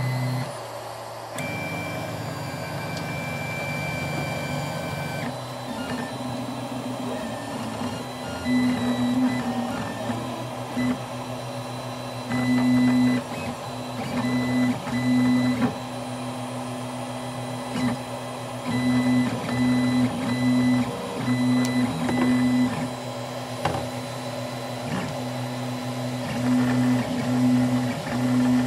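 Prusa i3 DIY kit 3D printer running, laying down the first layers of its first print: stepper motors whine in short, irregular bursts of changing pitch as the print head moves, over a steady low hum. Near the start comes a few seconds of steady high whine before the moves begin.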